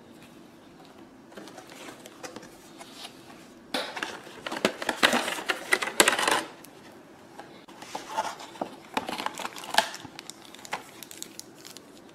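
Clear plastic clamshell packaging and film crinkling and crackling as it is handled and pulled apart, loudest about four to six seconds in, with more scattered crackles later.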